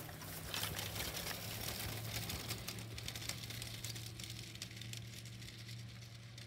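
A distant ultralight tow plane's engine running with a steady low hum that fades slightly. Over it comes a crackling rustle of footsteps through dry grass.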